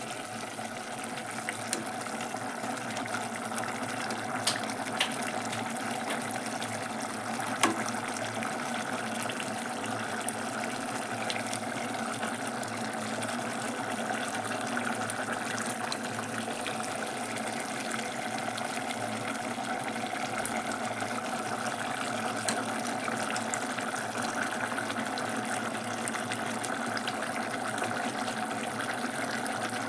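Potato curry simmering steadily in an open pressure cooker pot, with a few sharp clicks of a metal slotted spoon against the pot in the first eight seconds.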